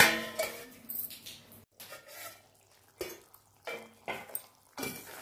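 A steel plate lid clanks down onto a steel cooking pot and rings briefly, followed by several softer scattered clinks and scrapes of a steel spatula against the pot.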